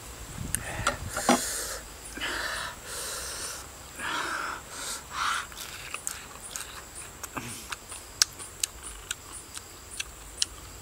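A man eating grilled fish by hand: a knife scraping through the fish near the start, then noisy sniffs and breaths with chewing, followed by many sharp clicks of lip smacks in the second half.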